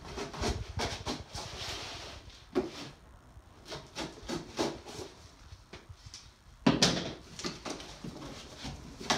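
Scissors cutting and scraping along the packing tape on a cardboard box in a run of short rasps and clicks, then the cardboard flaps being pulled open. A louder knock and rustle comes about seven seconds in.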